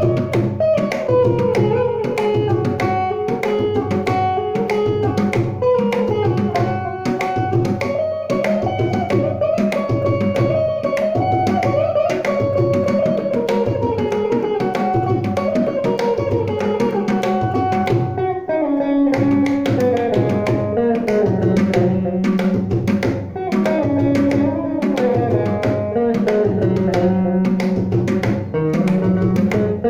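Electric guitar playing a Carnatic-style tatvapada melody with gliding, ornamented notes, accompanied by a mridangam beating a steady rhythm of hand strokes.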